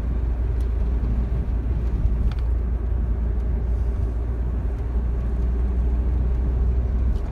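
Steady low road and engine rumble of a car driving on a paved road, heard inside the cabin. There are a few faint ticks, and the deepest part of the rumble drops away at the very end.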